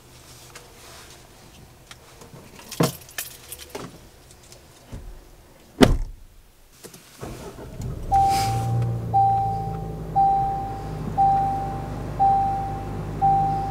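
A metallic jingle near three seconds in, then a loud thud of a car door shutting. From about eight seconds in the car's engine runs, and a warning chime dings about once a second, six times.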